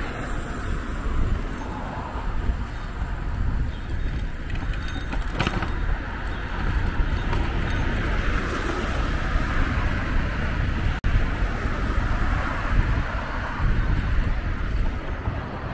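City street traffic heard from a moving bicycle, with wind rumbling on the microphone. The sound cuts out for an instant about eleven seconds in.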